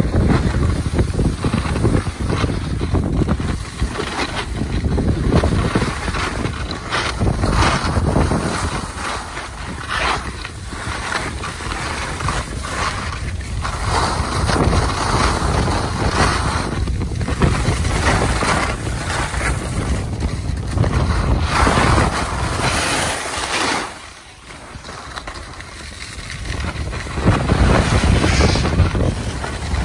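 Wind buffeting the microphone in irregular gusts, heaviest in the low rumble, easing off for a few seconds near the end.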